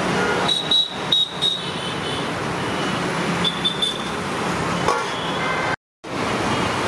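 Steady roadside traffic noise, with several sharp clinks of steel ladles on steel serving vessels and plates, a few ringing briefly. The sound cuts out for a moment near the end.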